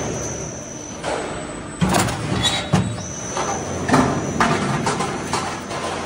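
Metal wall-cladding roll forming machine running: a steady mechanical drone with a thin high whine, and irregular sharp metallic clanks as the steel sheet feeds through the roller stations.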